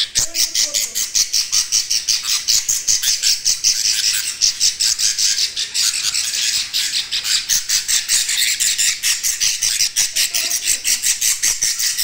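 Budgerigar chicks calling: a rapid, unbroken run of short, harsh, high-pitched calls, about five or six a second.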